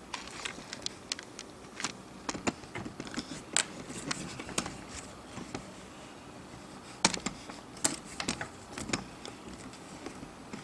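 Scattered light clicks and taps of small tools and metal parts being handled on an opened iPhone's frame, thinning out for a couple of seconds midway.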